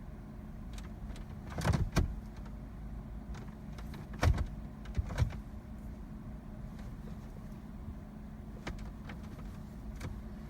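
Clicks and knocks from controls being handled inside a Jeep's cabin, with the engine not running because it will not start. The loudest come about two seconds in and again around four to five seconds in, over a steady low hum.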